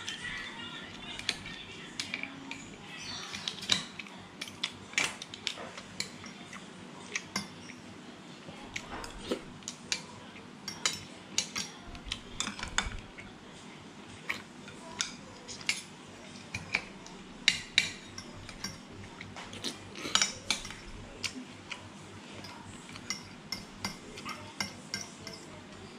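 Metal spoon and fork clinking and scraping against a ceramic plate of mussels during eating, many sharp clinks at an irregular pace, a few louder than the rest.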